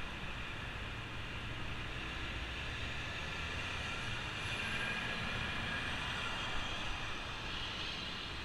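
Steady city road traffic heard from a moving bicycle: motor vehicles running on the street and the elevated highway alongside, over a constant hiss. A low rumble of a passing vehicle swells through the middle and eases near the end.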